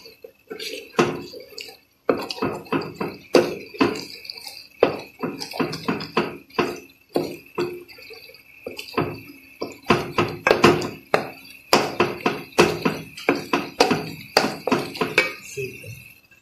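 Wooden spoon stirring and scraping a thick onion-and-tomato masala around an aluminium pot, in quick repeated strokes about two or three a second.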